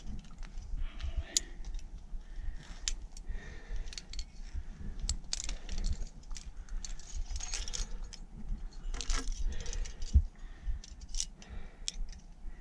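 Metal climbing gear, carabiners and protection on the rack, clinking and jangling in a string of irregular sharp clicks as the climber moves.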